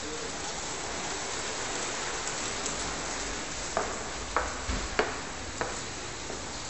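Steady hiss of rain, with a quick run of about five sharp knocks from footsteps on a hard floor midway through.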